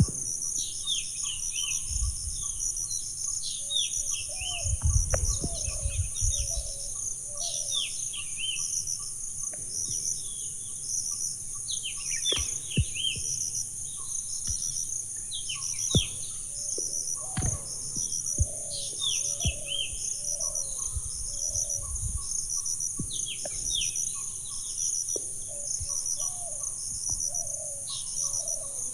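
Nature ambience of insects and birds: a steady high insect drone with a fast, even cricket-like pulsing, while birds call over it in repeated short falling phrases and lower repeated notes. A few low rumbles of wind come and go.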